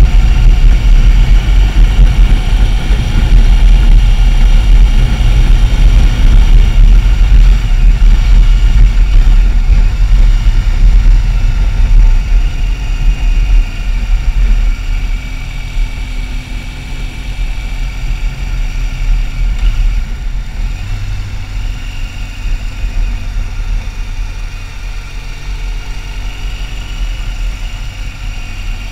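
Motorcycle engine running while riding, heard from a camera mounted on the bike, with heavy wind rumble on the microphone. The rumble is loud at first and eases from about halfway through.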